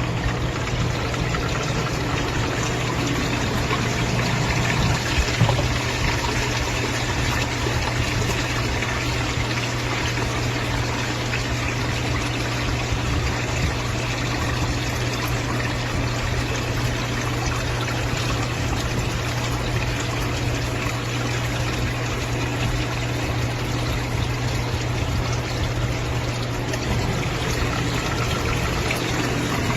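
Steady rush of water, with a steady low electric hum underneath, typical of a sump pump running in its pit.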